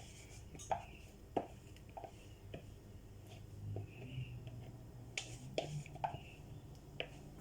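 Scattered light clicks and taps of a kitchen utensil against a mixing bowl as the wet muffin ingredients are poured into the dry ones, over a faint steady low hum.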